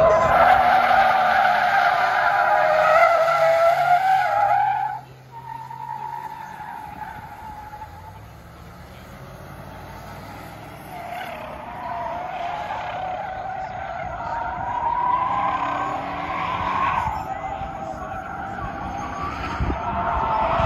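Car tyres squealing as they slide sideways on asphalt. The squeal is loud for the first five seconds and cuts off suddenly. It starts again more faintly about eleven seconds in and grows toward the end, with engine revving underneath.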